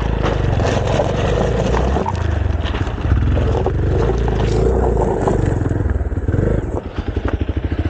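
Hero Xpulse 200's single-cylinder engine held at high revs as the rear tyre spins and slides on loose gravel, with stones clattering and scraping under it: the bike has lost traction and skidded on the loose stones. The revs dip briefly and pick up again about two-thirds of the way in.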